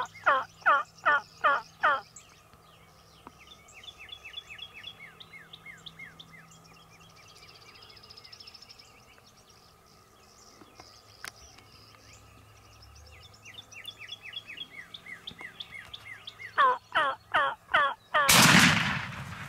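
Rio Grande wild turkey toms gobbling: a loud, close gobble at the start, fainter gobbles from farther birds in the middle, and another loud gobble. A single shotgun shot goes off near the end, the shot that kills the tom.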